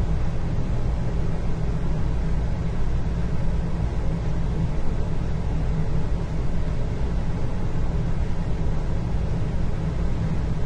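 Indoor ambience: a steady low rumble with a faint hiss above it and no separate events.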